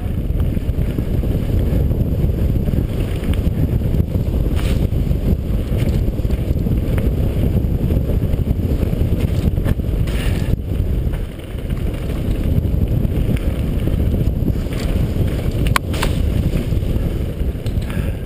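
Wind buffeting the microphone of an action camera on a mountain bike descending fast on a dirt singletrack. There is a steady low rumble from the tyres and the rush of air, broken a few times by sharp knocks as the bike rattles over rough ground.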